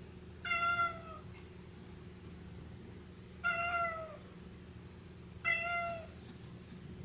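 Domestic cat meowing three times, each meow short and dipping slightly in pitch at the end, a couple of seconds apart.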